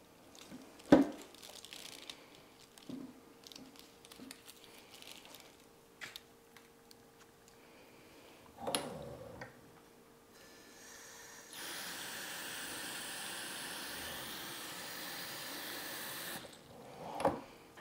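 Water spraying from a pull-down kitchen faucet sprayer onto a potted Hoya compacta, a steady hiss for about five seconds starting past the halfway point. Before it, leaves and a plant pot are handled, with a sharp knock about a second in and a duller bump near nine seconds.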